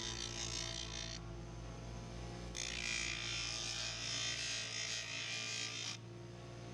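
Power grinder grinding down the steel mounting studs of an aftermarket side mirror, shortening them so the mirror sits flush. The grinding comes in twice: briefly at first, then for about three seconds after a pause, over the steady hum of the running motor.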